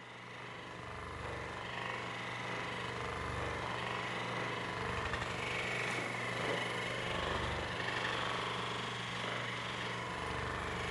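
Handheld electric percussion massager (massage gun) running steadily against the body, with a dull low pulse about every two seconds as it is pressed in and moved.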